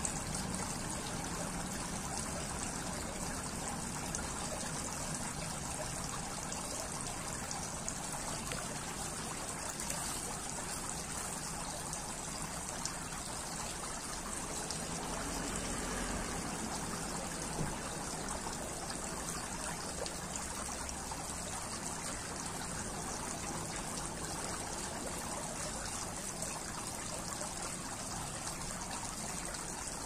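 Tiered stone garden fountain with water trickling and splashing steadily down its tiers.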